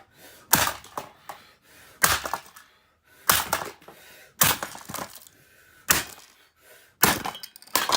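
Repeated sharp knocks and cracks of hard plastic, about one a second at uneven intervals, as the plastic housing of a Dirt Devil race-car vacuum is struck and broken apart.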